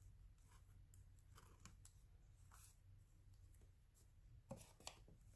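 Faint snips of scissors cutting paper: a few short cuts scattered through, the two sharpest near the end.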